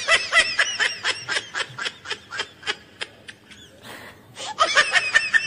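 High-pitched giggling laughter in rapid bursts, about five a second. It stops about three seconds in, then starts again near the end.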